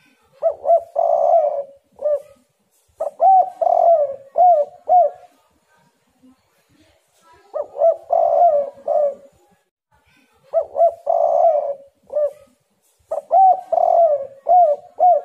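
Spotted dove cooing in full song: five phrases of several deep, gliding coos each, a new phrase every two to three seconds.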